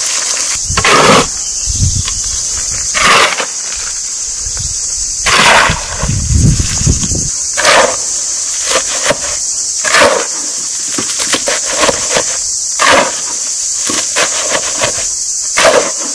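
A metal hoe scraping and chopping wet mud against a concrete floor, one rasping stroke every two to three seconds with small knocks between, as soil and water are worked into mud for a clay oven. A steady high-pitched buzz carries on underneath.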